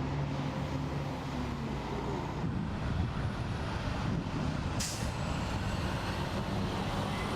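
Road traffic: a heavy vehicle's engine running and passing with a low rumble, and a short sharp hiss about five seconds in.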